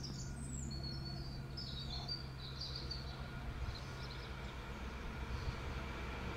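Small birds chirping over the low, distant rumble and hum of an approaching Class 66 diesel locomotive hauling a freight train.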